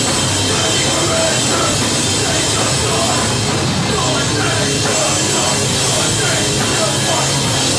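Live hardcore band playing loud, with guitar, drum kit and a vocalist on the microphone over them.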